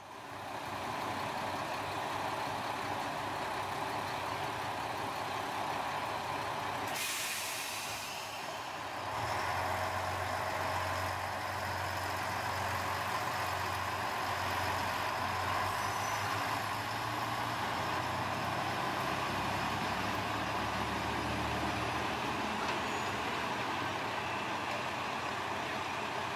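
JR Shikoku 1000 series diesel railcar departing: a short hiss of air from the brakes about seven seconds in, then the diesel engine comes up to a steady low drone as the train pulls away.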